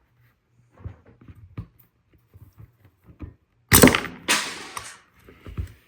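Small light clicks of an out-the-front automatic knife's parts being handled, then, a little over halfway through, a sudden loud snap as a spring-loaded part flies off, followed by a second loud clatter. This happens when the part is removed without first loosening the blade.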